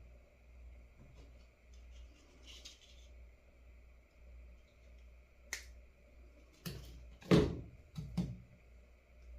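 A few sharp clicks and knocks of small tools being handled at an electronics soldering bench, the loudest about seven seconds in, over a steady low hum.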